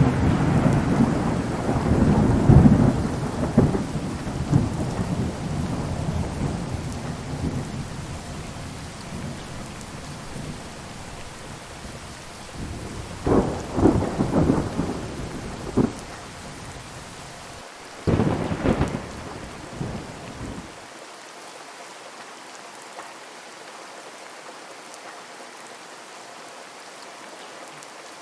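Heavy rain with rolling thunder: a loud rumble at the start dies away over about ten seconds, then two more thunder rumbles follow about halfway through. After about two-thirds of the way in, the deep rumble cuts off suddenly, leaving steady rain.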